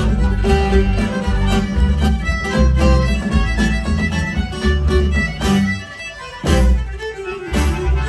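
Live pirate band playing, a fiddle carrying the tune over a steady low beat, with a brief drop in loudness about six seconds in.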